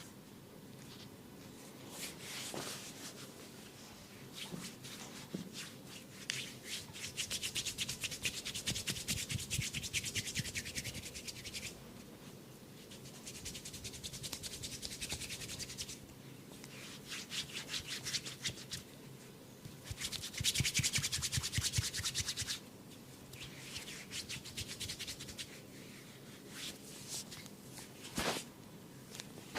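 Massage rubbing on skin, recorded close up, in several bouts of quick back-and-forth strokes a few seconds each. There is a single sharp click near the end.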